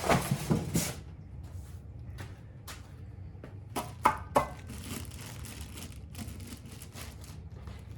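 Packaging being handled: scattered rustling and light clicks, with three sharper knocks in quick succession about four seconds in.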